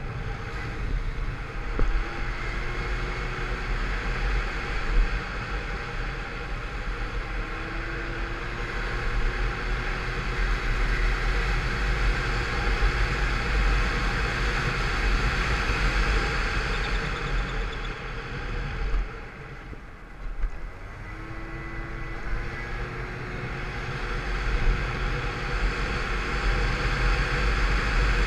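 Derestricted Peugeot Vivacity 50cc scooter running along the road, its engine mixed with rushing wind. The level dips about two-thirds of the way through, then builds again.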